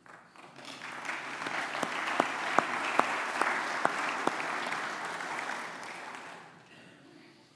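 A congregation applauding: the clapping builds up over the first second, holds, then dies away near the end.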